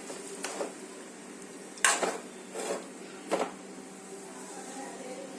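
A metal utensil clinking and scraping against a kadai as chicken is stirred, about four short strokes with the loudest about two seconds in, over a steady low hum.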